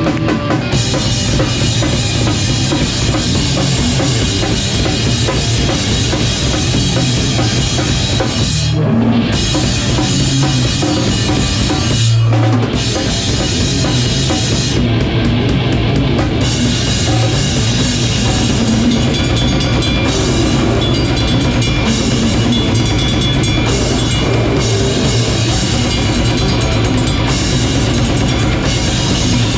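Live rock band playing loud, with the drum kit's bass drum and snare driving it. The sound briefly cuts back twice, about nine and twelve seconds in.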